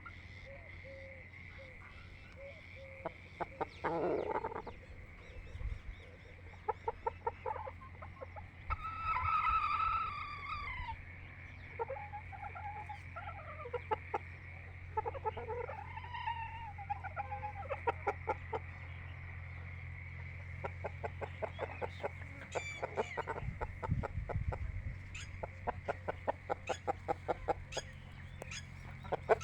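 Chickens clucking in quick runs of short calls, with one long, falling rooster crow about nine seconds in. A steady low hum runs underneath.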